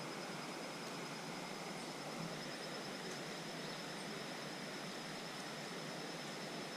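Steady rushing of river water flowing over rocks, an even hiss-like noise, with a faint steady high tone above it.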